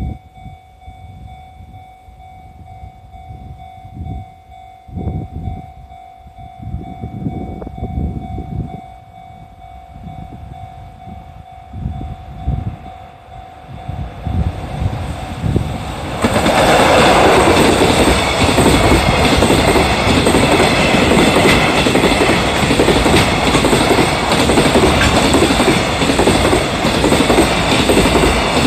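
Level-crossing warning bell ringing steadily over gusts of wind on the microphone. About sixteen seconds in, an EF66 electric locomotive hauling a freight train reaches the crossing, and a loud, steady noise of the locomotive and its wagons passing covers the bell.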